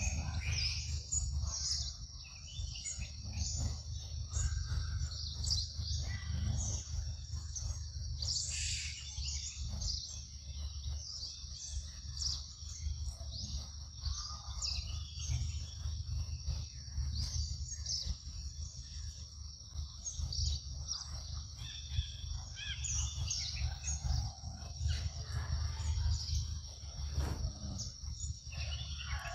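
Forest ambience: many short bird chirps scattered throughout over a steady high-pitched insect drone, with a steady low rumble underneath.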